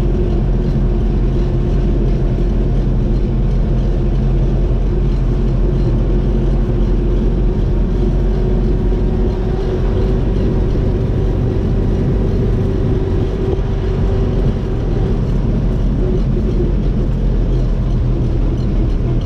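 MTZ Belarus 892 tractor's four-cylinder diesel engine running steadily as the tractor drives, heard from inside the cab, with a whine that rises slowly in pitch and fades near the end.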